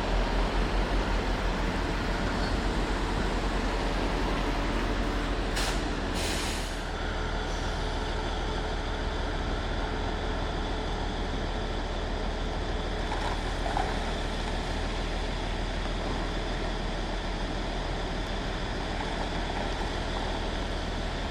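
Heavy truck's diesel engine running with a steady low rumble, easing off slightly after the first few seconds, with two short air-brake hisses about six seconds in.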